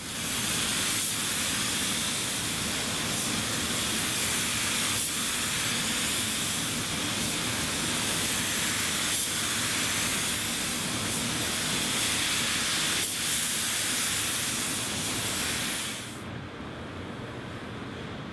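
Paint spray gun hissing steadily as clear coat is sprayed onto a car door. The hiss cuts off about sixteen seconds in, leaving a quieter steady hiss.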